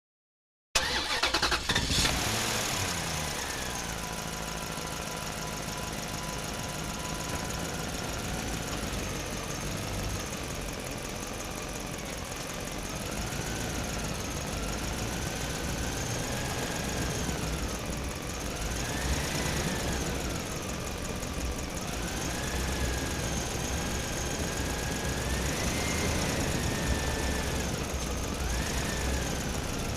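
Truck engine cranked over by its starter and catching, then running steadily, with its speed rising and falling several times.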